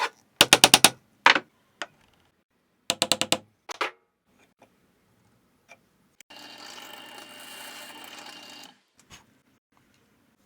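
Woodworking tool and wood handling sounds: two quick runs of sharp clicks or taps, a few single knocks, then a steady whir for about two and a half seconds.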